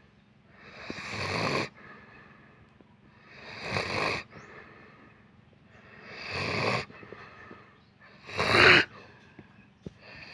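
Heavy snoring: four loud snores about two and a half seconds apart, each building up and then stopping sharply, with quieter breathing between them.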